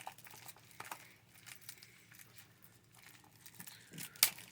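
Plastic shrink-wrap being torn and peeled off a DVD case, with faint crinkling, then a single sharp click near the end.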